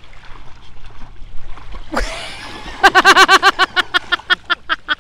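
Water splashing as a dog snaps and bites at the lake water, then a burst of hearty laughter, a fast run of 'ha-ha' pulses that starts loud about three seconds in and tails off.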